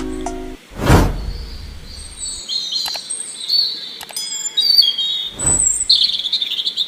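Birds chirping and tweeting as part of an intro sound bed, with a whoosh about a second in and another near the end, and two sharp clicks in between. The backing music with its bass drops out within the first second.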